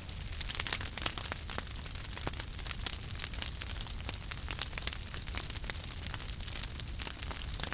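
Fire crackling, with frequent irregular sharp pops and snaps over a steady hiss and low rumble.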